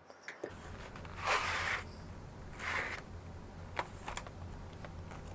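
A boxed set of Mungyo oil pastels being handled: two brief sliding swishes, then a couple of light clicks.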